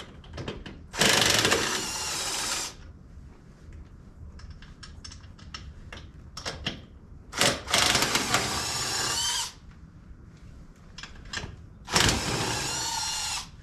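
Handheld power tool with a 3/4-inch socket spinning the lug nuts off a mower wheel. It runs in three loud bursts of one to two seconds each, with a whine that rises in pitch, and faint clicks and clatter between them.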